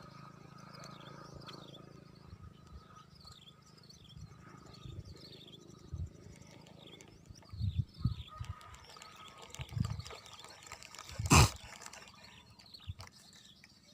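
An animal calling with short, high, falling chirps, about two a second, through the first half. Low thumps come in later, and one sharp knock lands about eleven seconds in.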